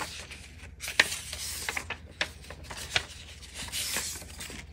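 Paper prop-money bills being handled and shuffled in the hands: crisp rustling with a few sharp paper snaps, the loudest about a second in.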